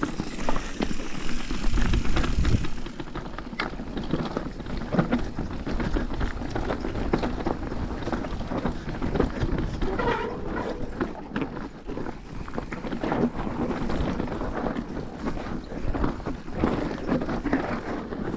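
Downhill mountain bike riding down a rocky dirt trail: tyres crunching over loose stones and the bike rattling in a steady clatter of small knocks, with wind and jacket fabric rubbing on a chest-mounted microphone.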